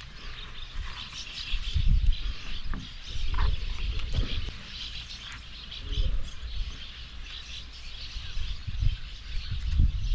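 Wild birds chirping steadily in the background, with irregular low thumps and bumps over them.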